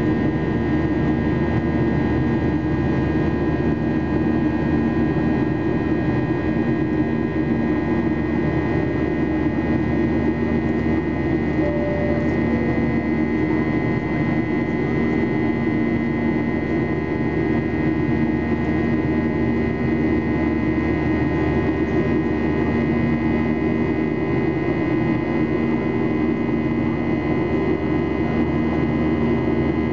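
Steady cabin drone of a Boeing 737-800 in flight, heard from a window seat over the wing: the CFM56-7B turbofans' hum with a few steady tones over the rush of airflow, unchanging throughout.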